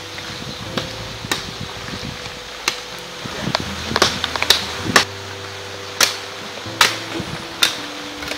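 A blade chopping into a wooden stick: about ten sharp strokes at an uneven pace, over a steady low hum.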